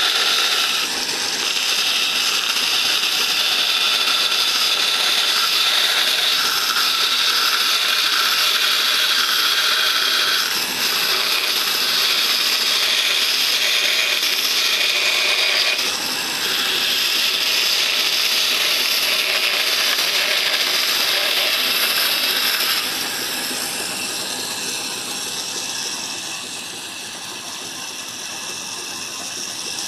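Bandsaw cutting a curve through a thick wood slab: the blade rasps steadily through the wood, changing slightly a few times as the feed shifts. About three-quarters of the way through it goes noticeably quieter.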